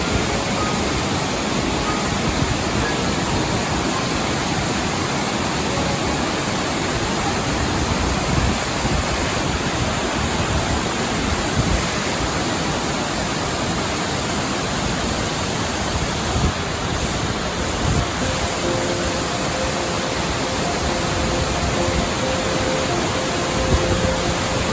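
Steady rushing of a waterfall, with soft calming music faintly over it; held music notes come through more clearly about three quarters of the way through.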